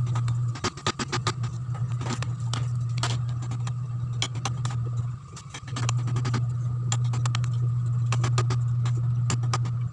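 Mallet striking a wood chisel as it cuts the trigger channel into a wooden buttstock: irregular knocks, sometimes in quick runs, over a steady low hum.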